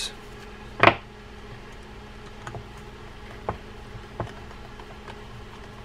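Small clicks and taps as a screwdriver and screws are worked into the side plate of a Shakespeare Tidewater 30L baitcasting reel. One sharp click comes about a second in, then a few faint ticks spaced about a second apart.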